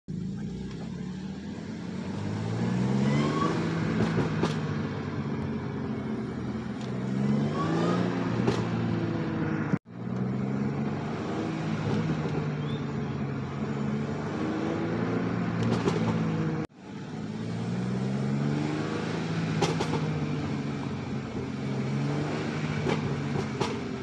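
A B8.5 Audi S4's supercharged 3.0-litre V6, tuned for exhaust pops and crackles, heard from inside the cabin. Its note climbs repeatedly under light acceleration and falls back when the throttle lifts, with sharp crackles on the overrun. The sound cuts off abruptly twice, about ten and seventeen seconds in.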